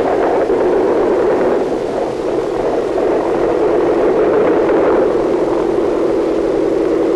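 Ford Trimotor's radial piston engine running with its propeller turning: a loud, steady, rough engine noise.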